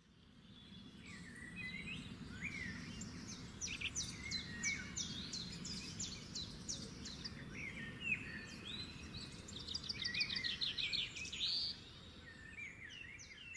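Several birds chirping and singing over a steady low rumble of background noise, fading in at the start. A rapid trill of quick repeated notes comes near the end.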